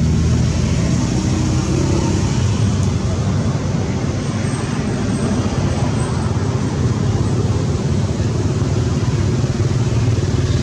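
Steady low outdoor background rumble with no distinct sounds standing out.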